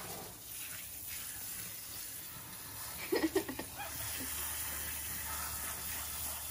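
Kitchen faucet's pull-down sprayer running, its water stream splashing steadily into a sink. A short voice-like sound comes about three seconds in.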